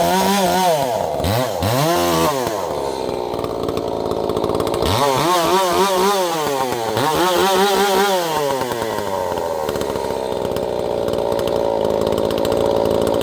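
Ported Echo CS-590 two-stroke chainsaw cutting through a log. Its engine speed rises and falls repeatedly for the first couple of seconds and again in the middle, then holds steady and high for the last few seconds.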